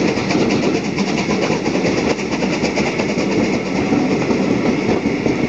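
Three-cylinder rebuilt Bulleid West Country steam locomotive working hard up a steep gradient, its exhaust beats mixed with steady carriage wheel and rail noise, heard from an open carriage window of the train it is hauling.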